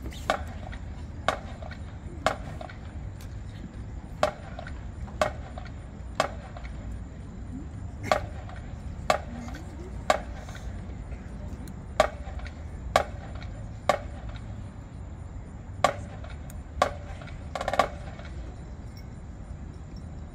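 Marching band percussion keeping time with sharp clicks about one per second, in groups of three followed by a rest beat; the last stroke, about 18 s in, is slightly drawn out. A steady low outdoor rumble lies underneath.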